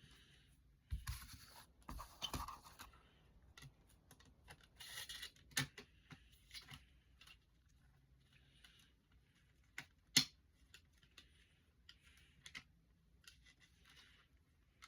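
Quiet handling noises of items being unpacked and sorted: scattered rustling and scraping with light clicks, and one sharper click about ten seconds in.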